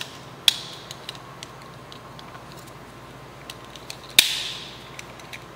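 Two halves of an Estes Firestreak SST's plastic body tube being pressed together by hand: small plastic clicks and ticks, then a sharp snap about four seconds in as the halves lock.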